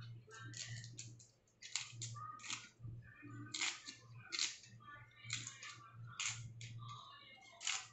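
Fresh Indian coral tree (kalyana murungai) leaves being torn from their stalks by hand: a dozen or so short, crisp crackles and snaps, roughly one or two a second.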